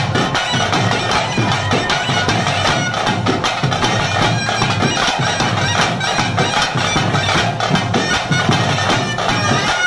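Nagaswaram, the South Indian double-reed pipe, playing a continuous held melody over steady drumming: the ritual vadya music of a Tulu daiva kola.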